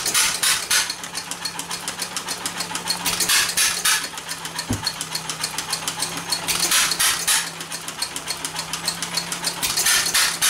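1913 Stickney 1 3/4 HP hit-and-miss engine running, with steady rapid clicking and four louder bursts about three seconds apart: the engine firing, then coasting between firings.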